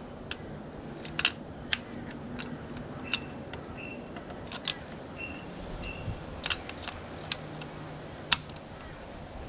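Scattered light clicks and taps of metal tools and parts being handled, with a few short faint squeaks between them.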